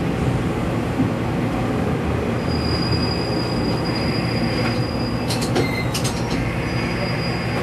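KiHa 120 diesel railcar braking to a stop: the engine hums steadily underneath, a thin high brake squeal comes in about two and a half seconds in, and a few sharp clicks sound about five seconds in as the car halts.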